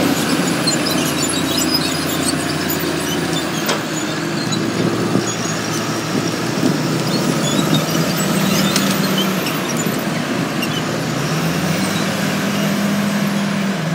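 Diesel engine of heavy logging equipment, a wheel loader, running under load as it works and moves, its engine note rising a little about eleven seconds in.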